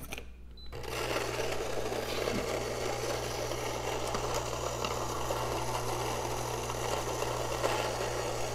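Electric coffee grinder starting about a second in and running steadily, grinding coffee beans at a medium-coarse setting.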